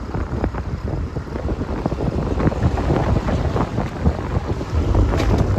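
Wind buffeting the microphone: a continuous low buffeting noise with rapid, irregular flutters.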